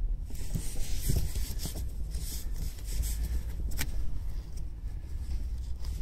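Fingers rubbing and brushing over a handheld camera's microphone as it is held, a scratchy handling noise over a low rumble, with a few sharp clicks, the clearest about a second in and near four seconds.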